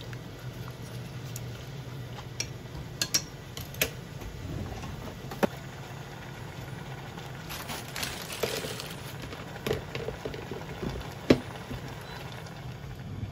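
Soy-and-dashi broth simmering in a saucepan of shaved burdock and konjac noodles, bubbling with scattered sharp pops and clicks and a denser patch of crackling midway, over a steady low hum.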